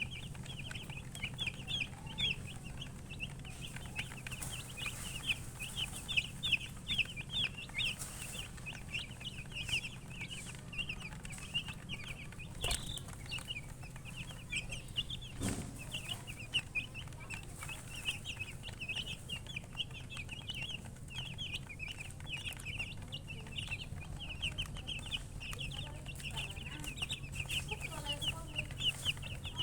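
A group of baby chicks peeping continuously, many short high cheeps overlapping in quick succession. Two sharp knocks, about 13 and 15 seconds in, with a faint low hum beneath.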